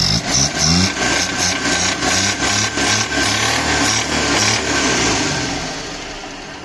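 Car engine revved up from idle and held, running with an uneven pulsing beat of about three throbs a second, then settling back down near the end.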